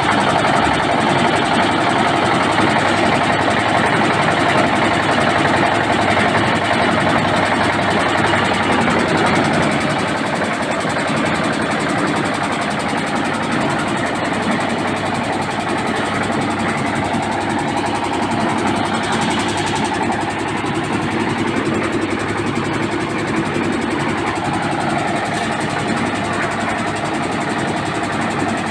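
Diesel engine of a concrete mixer with lift running steadily, with a slight drop in level about ten seconds in.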